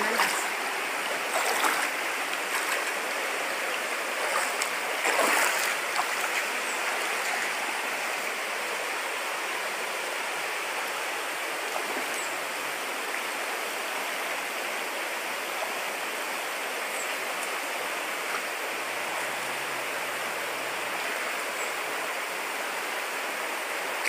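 Shallow rocky river water flowing over stones and boulders: a steady, even rushing, with a few brief louder noises in the first six seconds.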